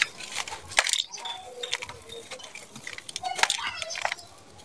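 A dry sand-cement chunk being crushed in bare hands: a run of sharp, gritty crunches as it breaks apart, with grit and dust falling into a bowl. Voices can be heard faintly in the background.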